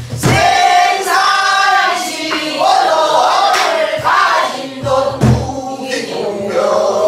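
A woman singing pansori in a strong, bending voice, with a few low strokes on a buk barrel drum, one near the start and more about five seconds in.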